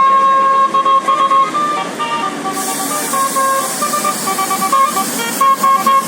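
Telolet basuri musical bus horn playing a quick tune of short notes stepping up and down in pitch. A steady high hiss comes in about halfway through.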